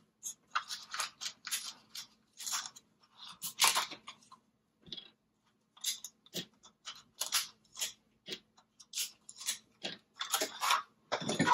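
Small metal parts rattling and clicking in a plastic cup as fingers sift through them: many short, irregular clicks and scrapes.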